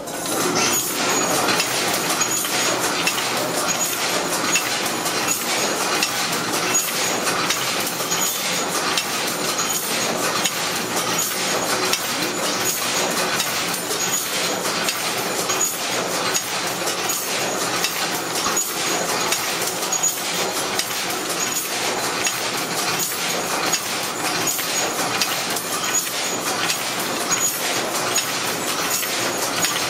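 Posamenter silk-ribbon loom with a Jacquard card cylinder, running at work: a fast, steady mechanical clatter of many small knocks and clinks.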